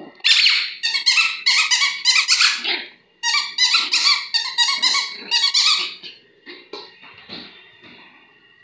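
Green spiky rubber squeaky ball squeaking over and over as a Yorkshire terrier puppy bites at it, in two quick runs with a short break about three seconds in; the squeaks stop about six seconds in.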